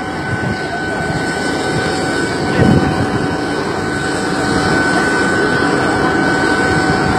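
Airliner turbine noise running steadily, a constant high whine over a broad rumble, with a brief louder burst of noise nearly three seconds in.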